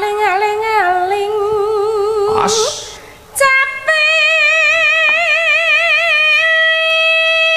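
A woman singing a slow, drawn-out melody with wide vibrato. She draws a breath about two and a half seconds in, then holds one long steady note.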